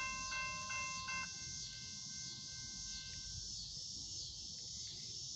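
Railroad crossing bell ringing a few last strokes, about three a second, then stopping about a second in once the gates are down, its tone dying away. Under it and after, a steady high drone of evening insects.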